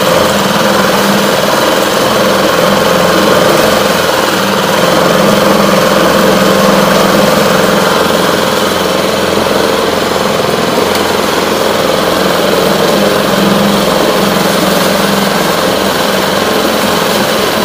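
Hidea HDF6HS four-stroke 6 hp outboard motor idling steadily, its engine note holding the same speed throughout.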